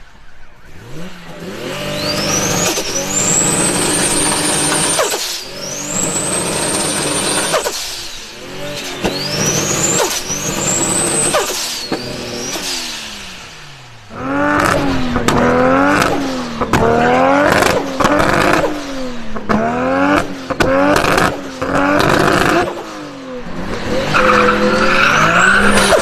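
Turbocharged car engine under acceleration, its turbo whistle climbing high and holding several times in the first half. Then comes a string of quick revs, about one a second, with rapid chattering turbo flutter (stututu) as the throttle closes between them.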